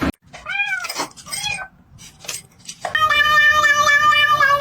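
A cat meowing: two short meows that rise and fall in pitch, then a long drawn-out yowl starting about three seconds in.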